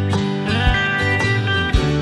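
Background music led by guitar over a steady beat.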